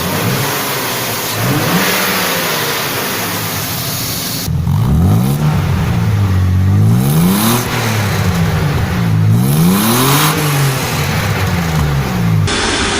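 BMW E34 5 Series engine revved up and down again and again, its pitch climbing and dropping back several times.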